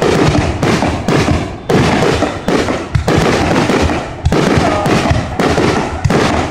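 Fireworks display: a dense, continuous barrage of loud bangs and crackle, shell bursts overlapping one after another with hardly a gap.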